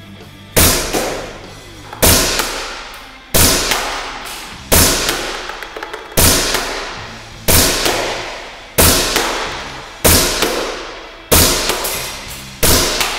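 WE XDM gas blowback airsoft pistol firing ten single shots, about one every 1.3 seconds. Each shot is a sharp, loud clack of the gas-driven slide cycling, ringing out for about a second before the next.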